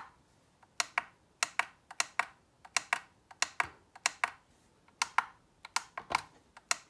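Buttons on a digital kitchen scale being pressed over and over: a run of short plastic clicks, often two or three in quick succession, as the unit setting is stepped through.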